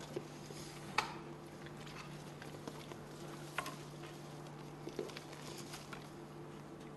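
Quiet room tone: a low steady hum with a few faint clicks and knocks from people moving about. The sharpest knock comes about a second in.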